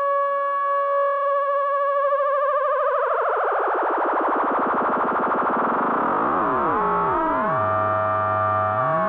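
Moog Werkstatt-01 analog synthesizer holding one note while a knob on it is turned: the steady tone starts to wobble about three seconds in and spreads into a swirling wash of gliding pitches that fall and rise, settling briefly on a steady low tone near the end before gliding again.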